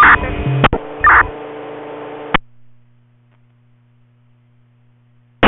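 Two-way radio traffic over a receiver's speaker. A transmission opens with a click and runs about two and a half seconds of hissy, narrow radio audio with a couple of brief garbled sounds, then cuts off with the squelch click. A steady low hum follows until a short key-up click near the end.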